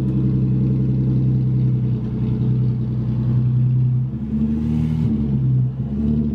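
Car engine idling loudly through an exhaust leak from a disconnected Y-pipe, a steady low note with short rises in pitch about four seconds in and again near the end.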